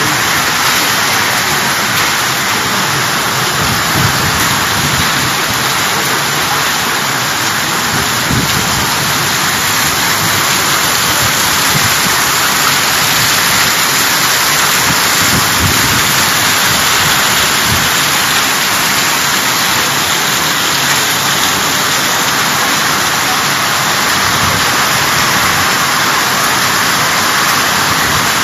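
Heavy rain pouring down in a windy storm: a loud, steady hiss of rain with irregular gusts of wind underneath.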